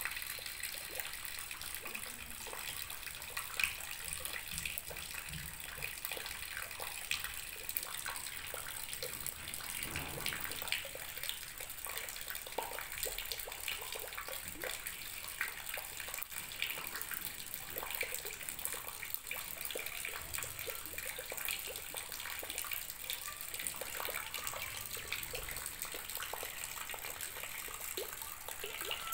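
A steady stream of water splashing into a full plastic basin, a continuous pouring hiss dotted with small irregular splashes, amid rain.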